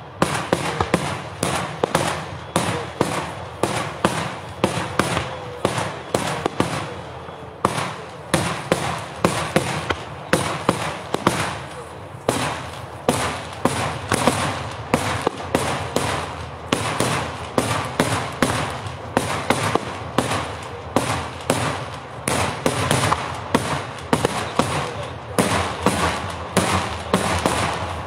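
Daytime aerial fireworks: shells bursting overhead in a rapid, steady string of loud bangs, about two a second, with crackling between them.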